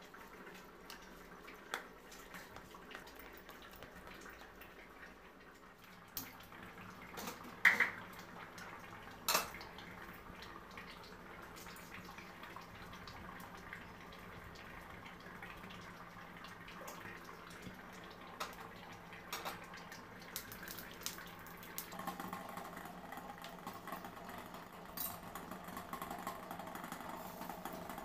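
Cooking sounds: a few sharp knocks and clinks of cookware, the loudest two about a third of the way in, one with a brief ring. Cooking oil is poured into a nonstick kadai. In the last quarter a steady hiss builds as the oil heats and balls of prawn-head fritter batter go in to fry.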